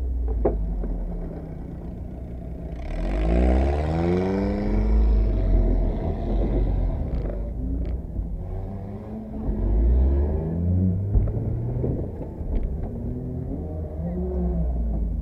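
Derby car's engine heard from inside the cabin, revving hard and easing off in repeated rising sweeps as it accelerates over a rough dirt track, with a deep rumble underneath.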